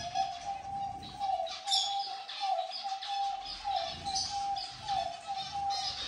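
Aviary birds calling: pigeons or doves cooing in a steady run of short, low notes, about two a second, under many high chirps from small finches and canaries.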